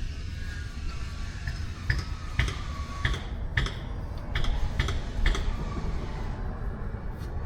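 A run of about seven sharp metal clicks, roughly half a second apart, as tools work the outer lock nut on a Chevy K5 Blazer front wheel spindle. A steady low rumble runs underneath.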